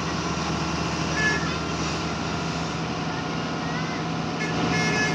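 Heavy diesel machinery engine running steadily at a low, even hum, with a few brief distant voices.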